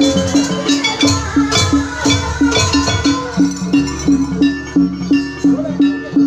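Jaranan gamelan music: a pitched gong-chime struck in a steady beat about three times a second, with drum strokes and higher ringing metal notes over it.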